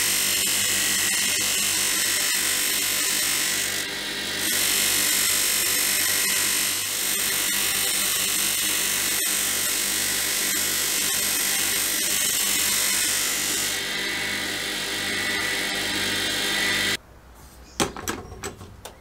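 Bench grinder running with a steady hum while a brass tube is pressed against its spinning abrasive wheel, giving a loud high hiss of grinding that eases briefly twice as the work shifts. It stops abruptly near the end, followed by a few sharp knocks from handling a sandblasting cabinet's door.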